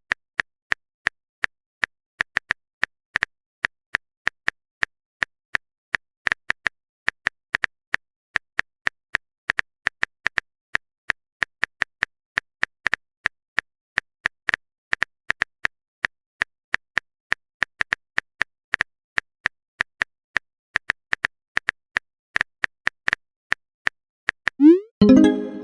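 Smartphone keyboard typing clicks, a quick irregular run of short ticks at roughly two to four a second. About a second before the end comes one louder sound effect that glides upward in pitch, like a message alert.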